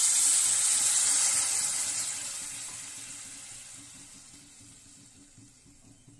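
Water poured from a cup onto sugar in a steel pan: a loud hissing splash that fades away gradually over the next few seconds.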